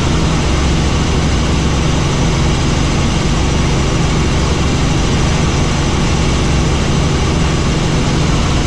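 Helicopter engine and rotor running: a loud, steady drone with a deep hum underneath that does not change.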